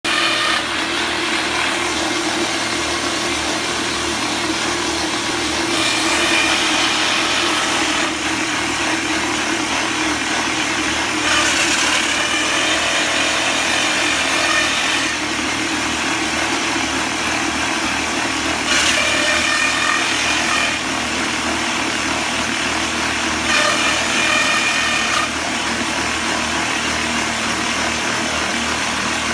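Epiroc tunnel drill rig at work: a steady, loud machine drone with the boom's rock drill grinding into the rock face. Louder, harsher stretches of a few seconds come and go several times.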